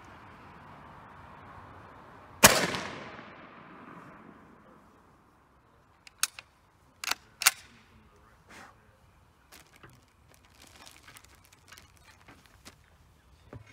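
A single shot from a Chassepot needle rifle firing a handmade paper cartridge about two seconds in, echoing for over a second. Then several sharp metallic clicks and fainter rattles as the bolt is worked and the rifle is reloaded.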